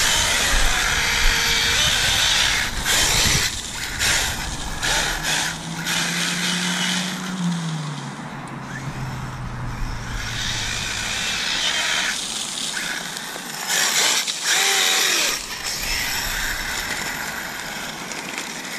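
Arrma Kraton EXB 1/8-scale RC truggy's brushless motor running in repeated bursts of throttle, its small foam tyres spinning and sliding for grip while it drifts.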